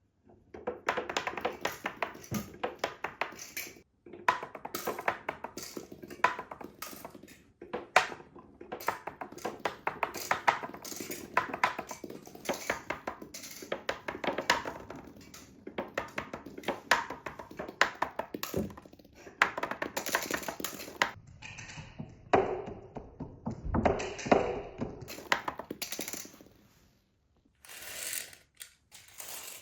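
Rapid clacking and tapping of small toys rolling down a HABA wooden slope run, in runs of a few seconds each with brief pauses between.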